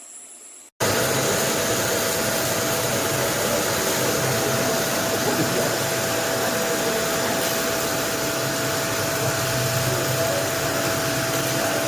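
Kärcher VC3 Plus bagless multi-cyclone vacuum cleaner running steadily: a loud, constant rush of air with a steady whine over it, cutting in abruptly about a second in.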